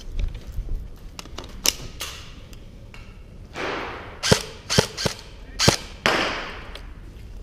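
Airsoft gunfire: a scattering of sharp single cracks, the loudest three coming close together between about four and six seconds in, with two short rushes of hiss among them.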